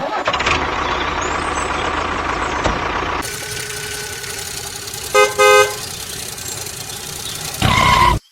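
Vehicle sounds: steady engine-like noise, with two short toots of a horn about five seconds in and a louder burst of noise near the end.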